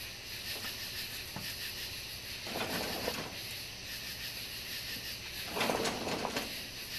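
Steady high chirring of night insects, with two short bursts of rustling noise about two and a half and five and a half seconds in.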